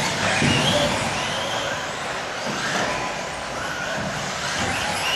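Several 1/10-scale electric 2WD off-road RC buggies racing on carpet: overlapping motor whines rising and falling in pitch as the cars accelerate and brake, over a steady rush of tyres and drivetrains.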